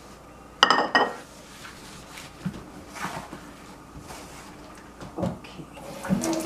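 Ceramic plate clinking against a tiled countertop: two sharp, ringing knocks about half a second apart, then a few softer knocks as it is handled.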